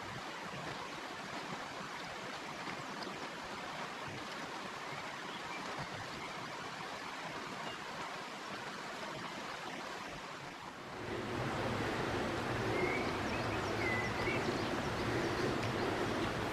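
Rushing water of a forest stream, a steady hiss. About eleven seconds in it turns louder and fuller.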